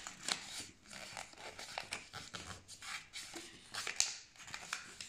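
Sheet of paper being opened up and folded by hand, rustling and crinkling in short irregular crackles, the sharpest about four seconds in.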